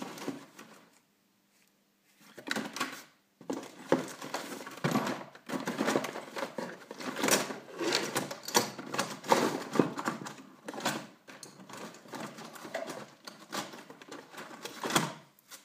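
Small hard objects, such as tools and parts, being handled, giving rapid, irregular clicks and rattles. The clicking starts after a short pause, runs on densely, and ends with a louder click near the end.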